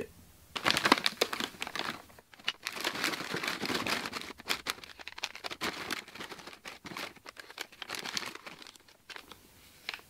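Plastic packets of resin pigment and colour-shifting flakes crinkling and rustling as hands rummage through them in a plastic tub, a busy crackle that starts about half a second in and dies away near the end.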